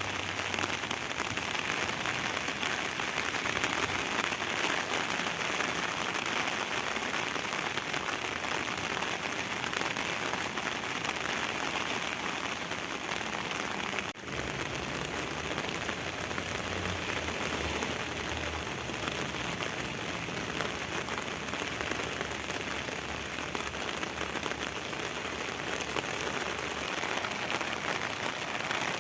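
Steady rain falling in a dense, even patter, with a momentary dropout about halfway through.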